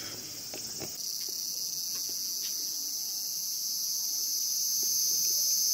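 A dense chorus of cicadas, a steady high-pitched buzz. It shifts about a second in and then slowly grows louder.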